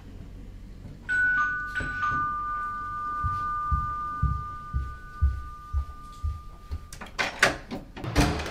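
Two-tone doorbell chime: a high note, then a lower note that rings on for several seconds. Footsteps on a hard floor sound beneath it, and a few sharp clicks come near the end.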